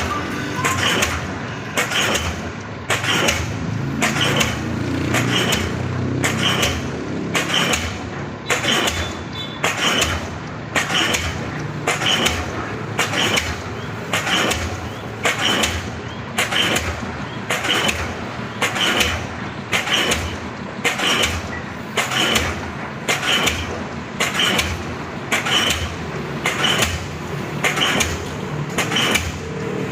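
Diesel pile hammer driving a pile, striking in a steady rhythm of a little over one blow a second.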